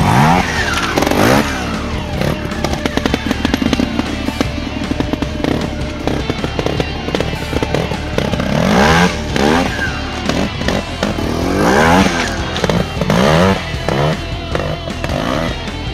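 Sherco trials motorcycle engine revved in short bursts that rise and fall in pitch, several times, as it climbs over rocks, with music playing underneath.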